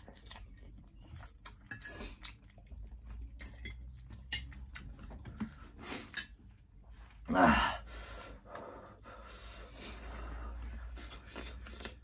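People eating spicy instant noodles: chewing and slurping, with small clicks of forks on plates. A short loud vocal noise comes about seven seconds in, then a few seconds of heavy, hissing breaths against the chilli heat.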